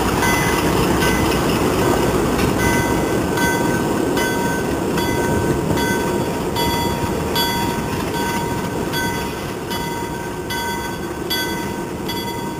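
A string of six Alco diesel locomotives running past at low speed, their engines loud at first and fading somewhat as they pull away. A short bell-like ring repeats evenly, about every two-thirds of a second.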